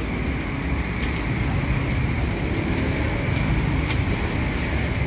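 Steady road-traffic noise with a low rumble, and a few faint clicks scattered through it.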